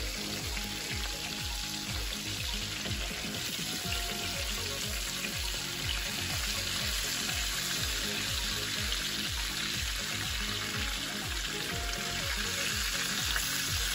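Flour-dusted stuffed squid and tentacles sizzling steadily in hot oil in a frying pan, over background music with a steady low beat.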